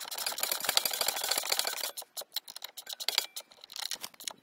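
Socket ratchet wrench clicking while a bolt is tightened: a fast run of clicks for about two seconds, then slower, separate clicks.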